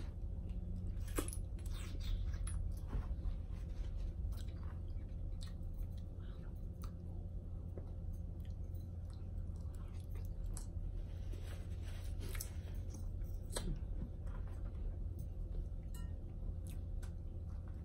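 Quiet chewing and the small clicks and crackles of hands picking through boiled seafood, over a steady low hum.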